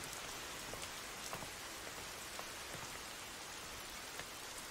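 Steady rain falling on a wet cobbled street: an even hiss with a few faint drop ticks scattered through it.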